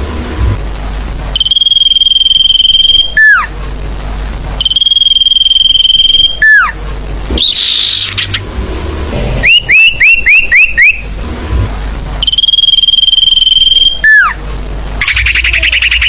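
Sirfu bird song played as a lure call. A held high whistle of about two seconds ends in a quick falling note and comes three times. A fast run of about six short rising chirps sits in the middle, and a buzzy trill comes near the end, all over a low steady hum.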